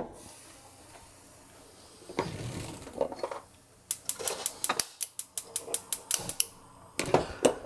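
Gas stove's spark igniter clicking rapidly, about six clicks a second for some two and a half seconds from about four seconds in, with a few more clicks near the end, as a burner is lit. A short scrape comes before the clicking, about two seconds in.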